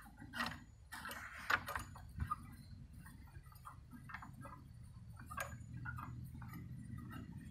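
Light metallic clicks and ticks as the main screw, a threaded stud with a tommy bar, is turned loose by hand, with a few sharper clicks in the first couple of seconds and one about five seconds in.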